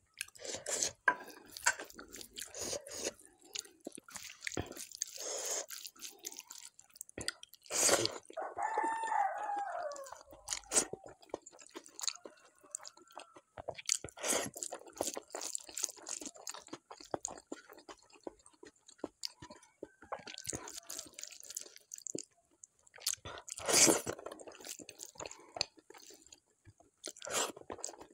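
Close-miked chewing and crunching of a handful of rice and bharta, with irregular wet mouth clicks and crunches. There are louder crunches about eight and twenty-four seconds in, and a short wavering hum around nine seconds.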